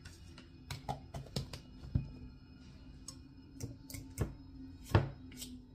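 Irregular clinks and knocks of a utensil against a bowl while banana cake batter is mixed, the loudest knock about five seconds in. Faint steady background music underneath.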